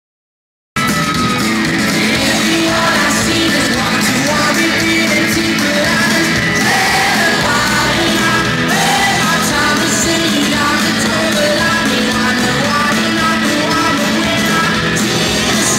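Rock band with guitar, drums and a singer playing live, heard from within the audience; it cuts in suddenly after a moment of silence at the very start.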